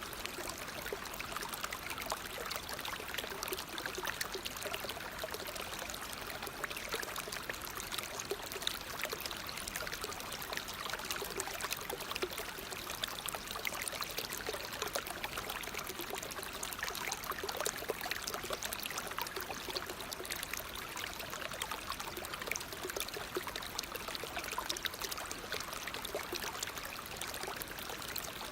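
Waterfall splashing steadily, a continuous rushing of falling water with fine splashes and no change through the stretch.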